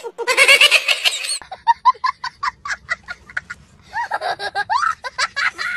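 A young boy laughing hard: a fast run of short high-pitched laughs, about six a second, between longer squealing laughs.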